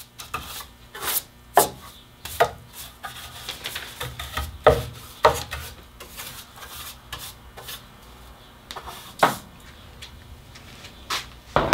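A hand bench brush sweeping over the wooden rocker base and bench top in short, irregular scraping strokes, a few of them sharp and knock-like.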